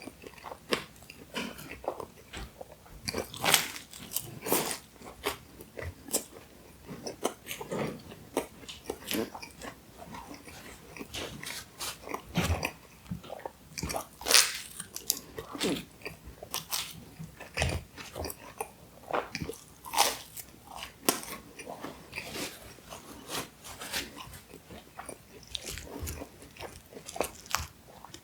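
Close-miked eating of Pizza Hut food: irregular crisp bites, crunching and wet chewing. The loudest crunches come about three and a half and fourteen seconds in.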